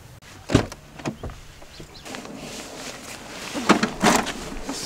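A couple of sharp knocks, then rustling and a louder cluster of bumps and scraping a little before the end as a large bagged tent is pulled out of a car's back seat.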